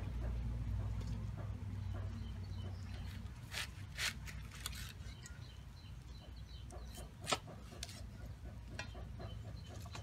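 Cleaver slicing through banana flower onto a wooden chopping board: scattered sharp knocks, the loudest about seven seconds in. Toward the end a hen clucks softly and steadily in the background.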